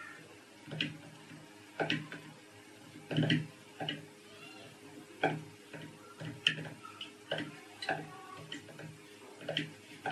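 A hand mixing thick besan (gram-flour) batter in a stainless steel pan: irregular wet slaps and knocks against the metal, about one a second.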